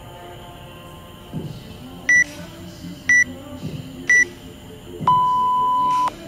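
WODProof interval timer counting down to the next round: three short high beeps about a second apart, then one long, lower beep marking the start of the new minute.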